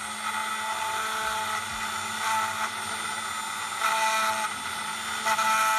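Dremel rotary tool running steadily, spinning an olive-pit bead on a needle mandrel while a felt pad is pressed against it to polish it, with brief louder moments about two, four and five seconds in.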